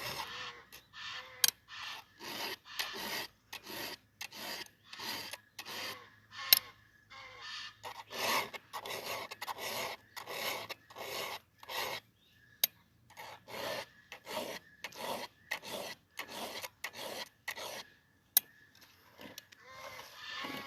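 A hand tool rasping back and forth in short, even strokes, about two a second. There is a brief pause about halfway through, and a few sharp clicks come in between the strokes.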